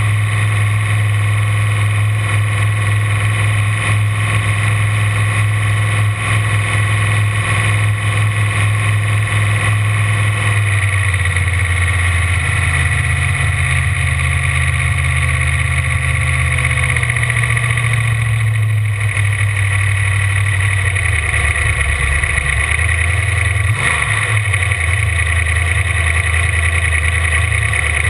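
Ford inboard engine of a V-drive boat running, loud and steady, its engine note shifting down about ten seconds in and changing several more times after.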